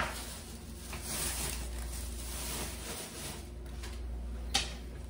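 Footsteps and the handling noise of a pair of Nike sneakers being carried and turned over in the hands, over a steady low hum, with one sharp click about four and a half seconds in.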